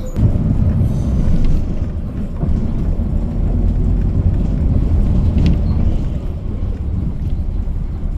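Steady low rumble of a moving city bus, engine and road noise heard from inside the cabin.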